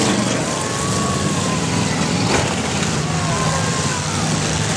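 Demolition derby cars' engines running and revving in a loud, dense din, with faint falling whines, and one sharp crash of car bodies colliding about halfway through.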